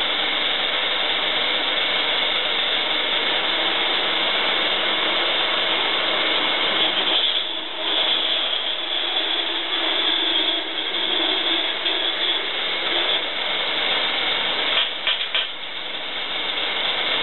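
Harbor Freight horizontal/vertical band saw running in its vertical setup, its blade cutting a short length of pipe fed by hand. A steady running and cutting noise, with a brief dip about seven seconds in and a few sharp clicks near the end.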